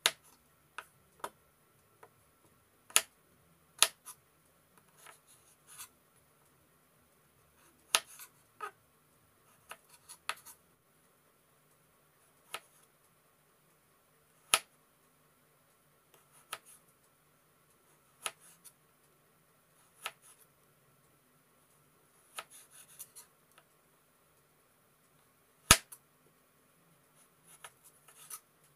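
Chef's knife cutting a carrot into sticks on a wooden cutting board: sharp, irregular knocks of the blade meeting the board, about one every second or two, with soft scraping between some of the cuts.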